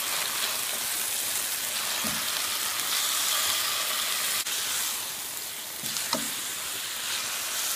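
Marinated chicken pieces sizzling steadily in a lightly oiled pan while they are turned over with tongs. A couple of sharp clicks come from the tongs knocking the pan, about four and a half and six seconds in.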